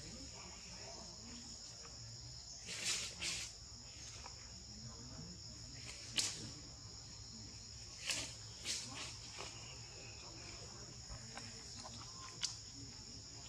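Steady, high-pitched drone of insects in the forest, with a few short, sharp noises scattered through it, the loudest about halfway in.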